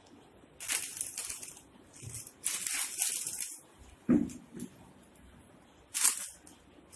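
Handling noises: several bursts of rustling and crinkling as a plastic flour packet is handled over newspaper, with a soft thump about four seconds in.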